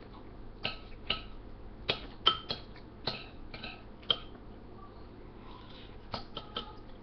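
Metal cutlery clinking against a dish while eating macaroni and cheese: about a dozen short, irregular clinks with a brief ring, most in the first four seconds and a few more near the end.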